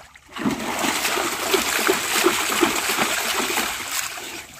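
Water splashing as a bather in a shallow pool scoops it up with both hands and throws it over himself, over and over. The splashing starts about half a second in and stops near the end.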